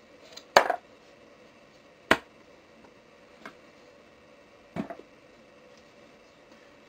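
A few sharp metallic clicks from a cheap Zippo-style lighter being handled, its hinged lid snapping open and shut. The loudest comes about half a second in, another about two seconds in, a faint one in between, and a short double click near five seconds.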